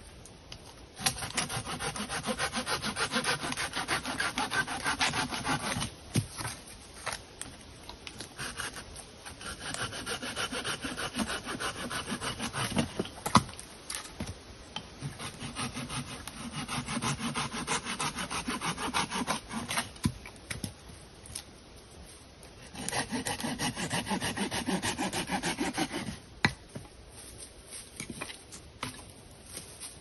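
Hand saw cutting through wood in four bouts of rapid back-and-forth strokes, with short pauses between them.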